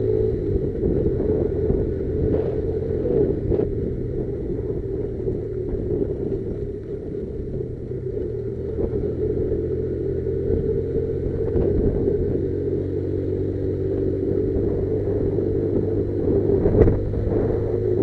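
Motorcycle engine running steadily at an even speed, with a few brief knocks, the loudest near the end.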